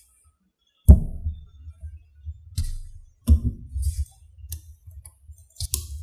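Small magnetic balls clicking and clacking together as blocks of them are pressed and joined by hand, about five sharp clacks with the loudest about a second in, each followed by dull knocks of the pieces against the tabletop.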